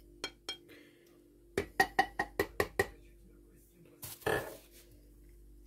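Metal cutlery clinking against dishware: a few single clinks, then a quick run of about six clinks a second with a short ring, followed by a brief swish, over a faint steady hum.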